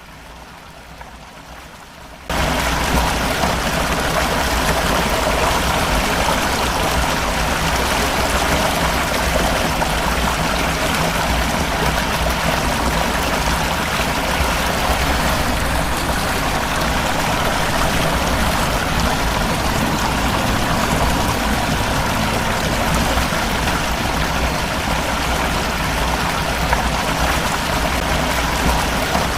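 Rushing floodwater: a loud, steady rush of water that cuts in suddenly about two seconds in, after a quieter stretch.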